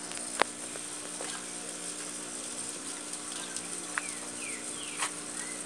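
Cotton candy machine running with a steady low hum. A sharp click comes about half a second in, with a couple of lighter taps and a few short falling chirps near the end.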